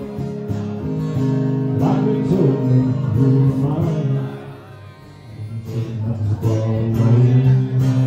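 A country song played live on a strummed acoustic guitar, with a man singing over it. The playing eases off for about a second near the middle before picking up again.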